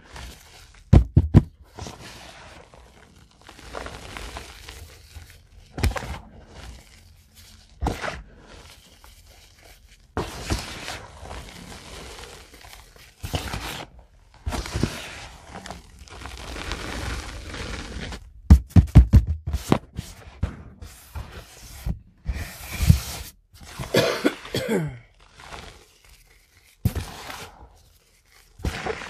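Fingers crushing and squeezing reformed gym chalk blocks, with irregular soft powdery crunches and scraping. Sharp cracks come about a second in and again in a loud cluster about two-thirds of the way through.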